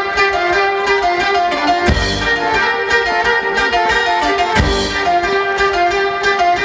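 Live folk band playing an instrumental passage: a melody of plucked and bowed strings over a deep drum that strikes twice, a couple of seconds apart.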